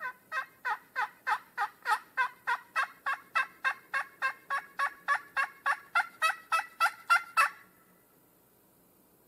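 Turkey call sounding a long series of hen yelps: about two dozen evenly spaced two-note yelps, roughly three a second, growing louder, then stopping abruptly about seven and a half seconds in.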